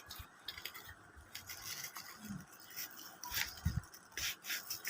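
Quiet handling of product packaging: scattered small clicks, scrapes and rustles, with a couple of soft low thuds, as a packed item is unwrapped and taken out.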